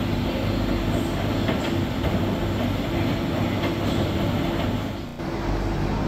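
Electrolux Professional WN6-14 commercial front-loading washing machine running its rinse cycle: the drum turns the wet laundry with a steady rumble and motor hum. The sound briefly dips about five seconds in.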